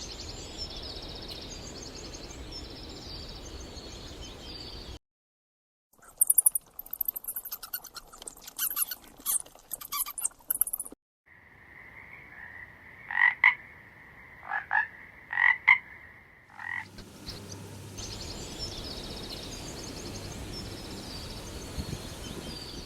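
Frogs calling and croaking in a run of separate short recordings, with a brief silent gap about five seconds in. In the middle, a steady high trill runs for several seconds with sharp calls over it.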